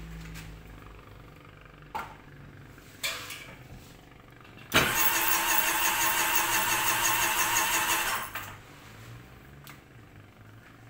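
Sea-Doo personal watercraft engine cranked over on its handlebar start button for about three and a half seconds, starting and cutting off abruptly. Two light knocks come a couple of seconds before it.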